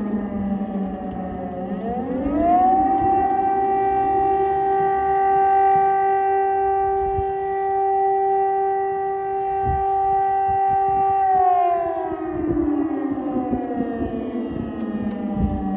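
Air-raid siren wailing. Its pitch falls, then rises about two seconds in and holds a steady tone for roughly nine seconds. It then falls away again and begins to rise near the end.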